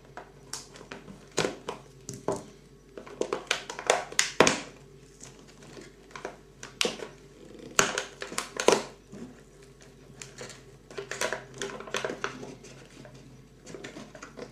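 Cardboard door of an advent calendar being pried and torn open: irregular crackles, clicks and scrapes of stiff card, in clusters with short pauses.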